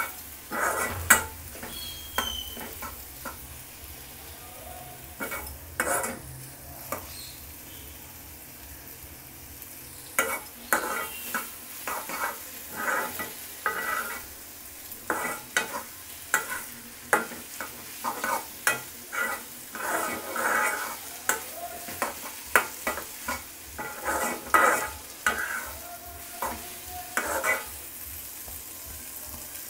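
Wooden spatula stirring and scraping fish mash in a black wok, over the sizzle of it frying. The strokes come irregularly, sparse at first and closer together from about ten seconds in.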